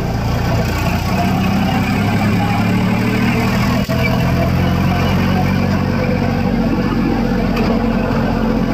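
Farm tractor's diesel engine running steadily while it drives, heard from the driver's seat, with a brief click about four seconds in.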